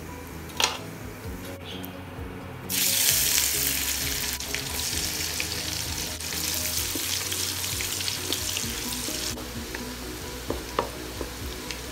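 Dried anchovies (ikan bilis) frying in hot oil in a wok. The sizzling starts suddenly about three seconds in and stays strong for several seconds, then goes on more softly as they are stirred with a wooden spatula. A sharp tap comes under a second in.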